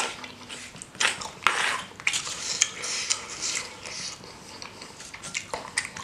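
Close-miked eating sounds: a wooden spoon scraping in a stone mortar, with slurping and chewing of spicy seblak, in a run of short noisy bursts and a few sharp clicks near the end.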